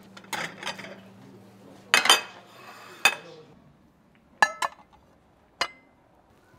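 Dishes and cutlery clattering, with a handful of sharp clinks and knocks. One double clink about four and a half seconds in rings briefly.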